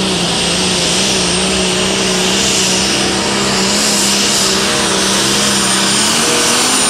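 Allis-Chalmers Light Super Stock pulling tractor's turbocharged diesel engine running flat out under the load of the sled, with a high whine over it. The engine note holds steady and climbs slightly in pitch near the end.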